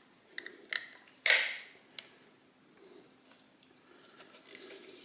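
A Ridgid 18V magnetic task light being handled and turned over: a few light plastic clicks, a louder scrape about a second in, another click, then faint rustling.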